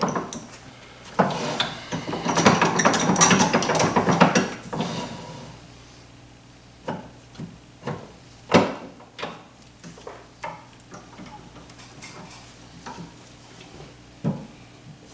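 Handling noises from mounting a small wooden block between centers on a wood lathe with a safety drive center: a couple of seconds of rattling and scraping, then scattered sharp knocks and clicks.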